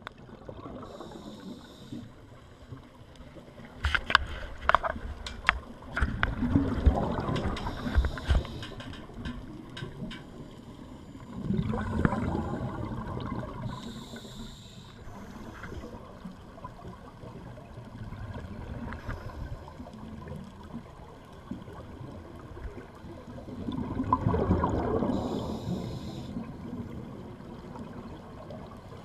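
Scuba diver breathing through a regulator, heard underwater: gurgling bursts of exhaled bubbles three times, with a short hiss around some of them and a few sharp clicks a few seconds in.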